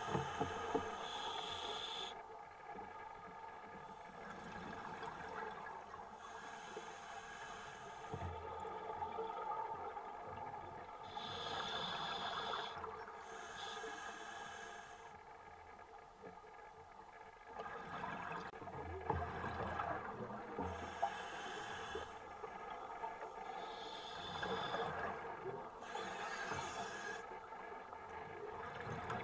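Scuba diver breathing through a regulator underwater: a hissing inhale alternating with the burble of exhaled bubbles, about one breath every five or six seconds.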